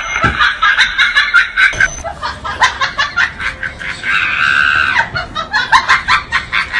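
Rapid, high-pitched laughter, coming in quick repeated bursts.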